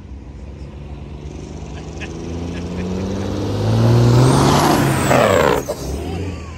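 Diesel truck engine pulling hard, blowing black smoke, as the truck approaches and passes close by. Its note climbs in pitch and gets louder, peaks as it goes past, then cuts back sharply a little before the end.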